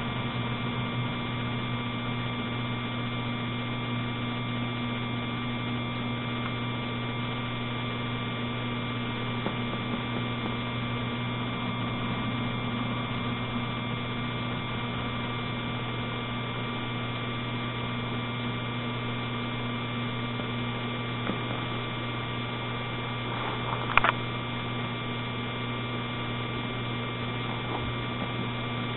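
Steady electrical hum with a thin high whine over a hiss, unchanging throughout, and one short sharp click a few seconds before the end.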